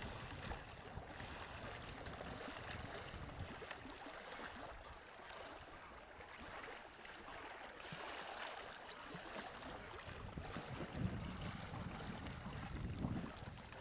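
Faint, steady rushing water ambience, with a few stronger low swells near the end.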